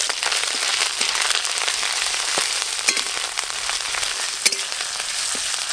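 Ginger and green chilli paste sizzling in hot mustard oil with whole spices in an aluminium kadai, a steady frying hiss, while a flat spatula stirs it and clicks against the pan a few times.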